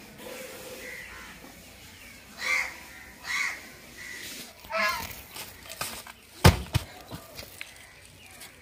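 A domestic goose honking three times, short harsh calls about a second apart, followed by a single loud thump.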